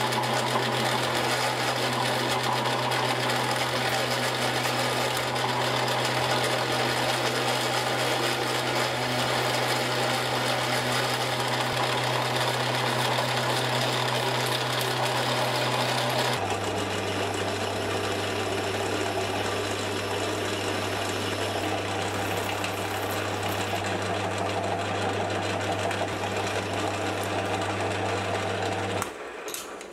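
Metal lathe running with a steady motor hum and the hiss of a tool cutting a small metal part. About halfway through the hum steps down a little in pitch, and near the end the sound cuts off.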